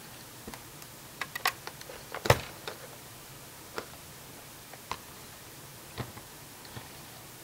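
Clicks and light knocks from a folded Polaroid Land Camera Model 250 being turned over and handled: a quick cluster of clicks a little over a second in, the loudest knock a little after two seconds, then single clicks about once a second.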